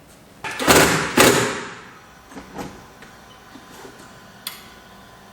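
Two loud scraping, sliding sounds in quick succession, then several light clicks and knocks: equipment being handled.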